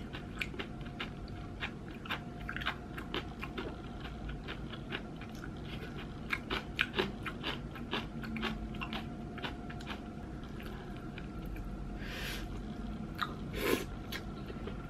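Close-up chewing and mouth sounds from eating cold naengmyeon noodles, with many small clicks. Two short slurps of noodles come near the end.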